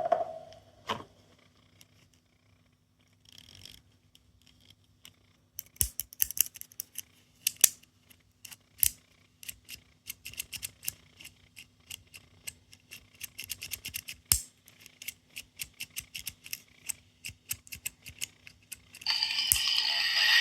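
Small plastic capsule toys being handled, giving a string of sharp plastic clicks that are sparse at first and later come several a second. About a second before the end, a loud noisy sound with ringing tones starts.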